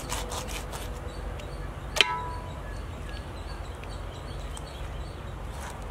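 A knife cutting a raw chicken on a wooden chopping stump. It gives one sharp strike at the start and a louder one about two seconds in, which rings briefly like metal.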